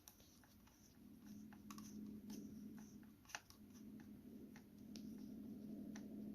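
Faint clicks and light scraping of a small screwdriver turning screws into a laptop's plastic bottom panel, with a low steady hum underneath that starts about a second in and breaks off briefly around three seconds.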